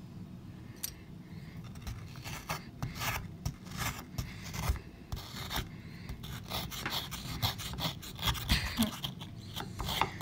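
A small plastic digging tool scraping and rubbing at a soaked plaster dig-kit bar, in quick irregular strokes that start a couple of seconds in and grow busier toward the end.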